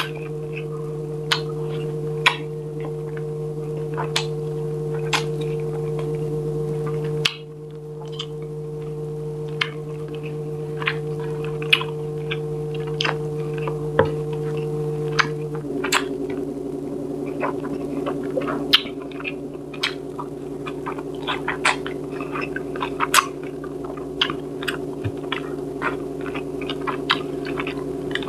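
Mukbang eating sounds: many short, sharp clicks and smacks from chewing and from fingers picking apart tilapia cooked in coconut milk. Under them runs a steady hum of held tones that shifts pitch about a quarter of the way in and again about halfway through.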